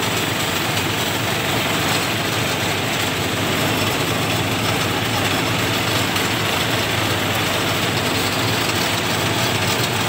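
Engine-driven portable rice thresher running steadily as bundles of rice stalks are fed into it.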